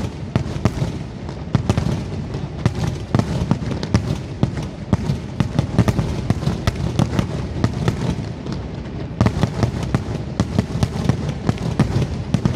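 Aerial fireworks display: a rapid, continuous barrage of shell bursts, many sharp booms and cracks a second overlapping over a steady low rumble.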